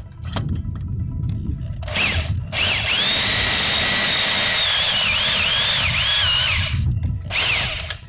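A corded drill drives a Lug Ripper extractor bit against a lug nut that is spinning on its stud. It runs in a short burst, then in a loud run of about four seconds, then another short burst. During the long run a high whine wavers up and down in pitch as the bit bites and chatters on the nut.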